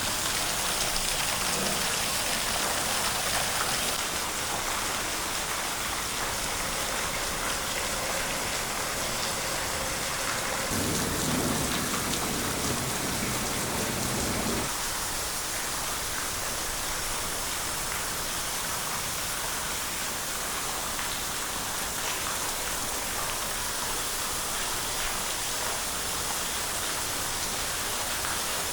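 Steady rain hiss as a typhoon approaches. About eleven seconds in, a low rumble joins for roughly four seconds, then stops.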